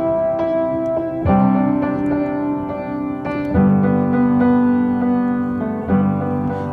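Background music: slow piano chords changing every couple of seconds.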